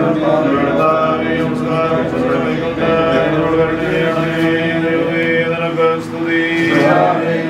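Slow chanting of a Malayalam Christian liturgical prayer, sung in long, drawn-out held notes.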